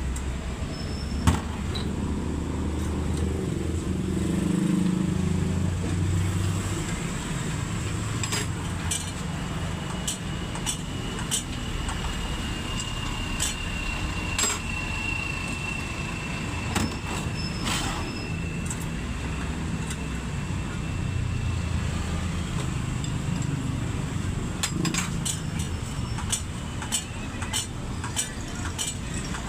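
Isuzu 10PC1 V10 diesel engine running steadily, with scattered light clicks and knocks over it.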